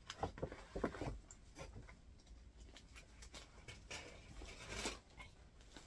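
A paper gift bag rustling in short spells as it is handled, with a few soft knocks.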